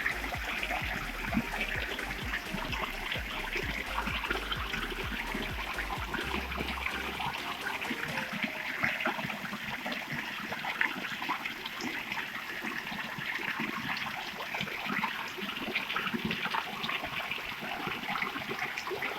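Stream water running and trickling over rocks, a steady rushing with many small babbling splashes. A low rumble underneath stops about seven seconds in.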